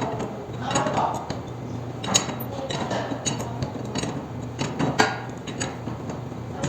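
Metal tools clinking and knocking on a roller coaster's wheel assembly as it is being dismantled, with the sharpest knocks about two seconds in and about five seconds in, over a low steady hum.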